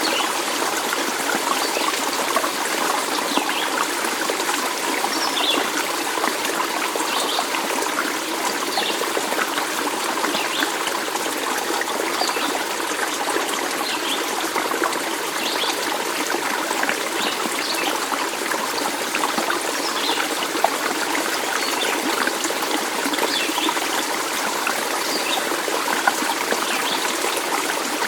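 A stream of running water trickling and splashing steadily, with faint short high plinks scattered through it.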